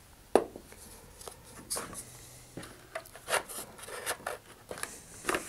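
Hands handling a model rocket's wooden fins, cardboard body tube and cardboard alignment jig. A sharp knock comes just after the start, followed by scattered taps, rubs and light scrapes.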